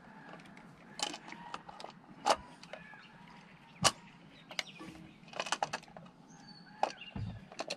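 Scattered sharp plastic clicks and light rattles of a new distributor cap and its spark plug wires being handled and seated on the distributor, with a dull thump near the end.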